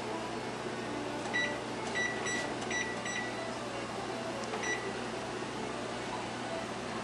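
Kitchen range's touchpad timer beeping as its keys are pressed to set a timer: about seven short high beeps in quick succession from about a second in, the last a little later, over a steady background hiss.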